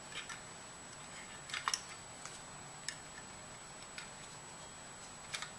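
Scattered light clicks and taps of a circuit board with heatsinks and its small screw hardware being handled. A sharp double click about one and a half seconds in is the loudest.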